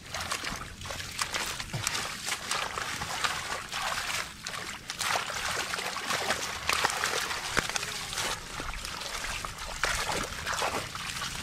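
Bare feet and hands stirring shallow muddy water: a continuous run of short, irregular splashes and sloshes.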